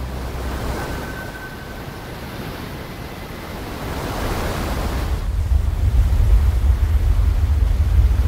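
Heavy ocean surf and wind: a steady rushing wash, with a deep rumble of big waves swelling in about halfway through and staying loud.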